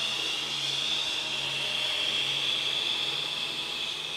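People exhaling the long hissing "sss" lung sound of the Taoist six healing sounds, one steady hiss held throughout.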